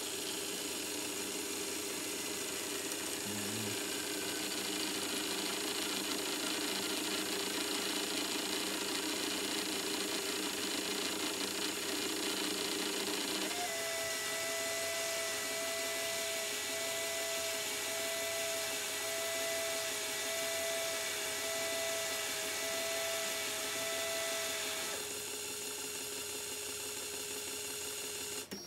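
Reefbot automatic reef-aquarium water tester's small motors running with a steady electric whine. About halfway through the whine takes on a clear steady tone, which drops away a few seconds before the sound cuts off at the end.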